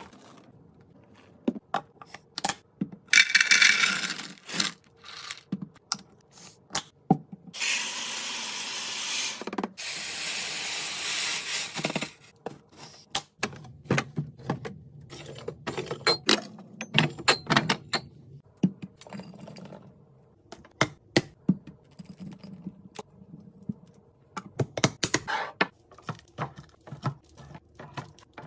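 Containers, lids and packaging being handled while restocking a pantry and fridge: many sharp clicks, taps and knocks, with a few seconds of steady rushing noise near the middle.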